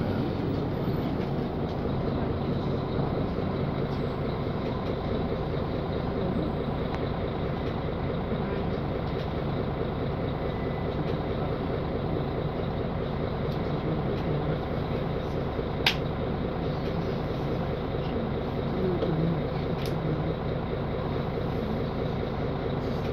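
Interior of a 2013 Mercedes-Benz Conecto G articulated city bus, its OM457LA turbo diesel engine running steadily at low revs. A sharp click comes about 16 s in, and a fainter one about 20 s in.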